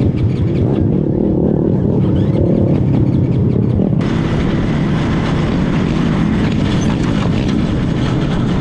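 Outlaw racing karts' engines running hard at race speed, their pitch rising and falling through the laps. About four seconds in the sound abruptly turns brighter and hissier.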